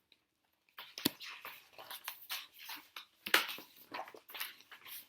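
Pages of a large picture book being turned and handled: irregular crisp paper rustles with a sharp click about a second in.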